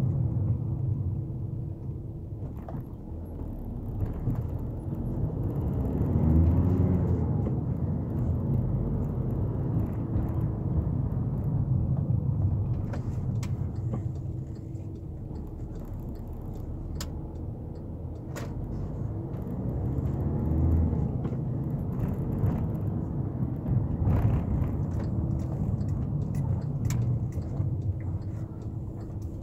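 VW Caddy 2.0 TDI four-cylinder diesel engine heard from inside the cabin while driving in town. It rumbles steadily with road noise, and its note rises and falls twice under acceleration, about six seconds in and again about twenty seconds in.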